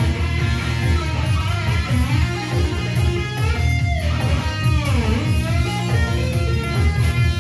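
Kramer Baretta electric guitar playing a lead line with bent and swooping notes, most plainly about halfway through, over a steady low rhythmic bass pulse.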